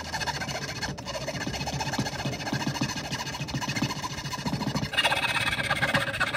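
Small handheld rotary tool running with its bit against a silver spoon handle clamped in a vise, with a steady whine and a rough buzz. It gets louder about five seconds in, then cuts off.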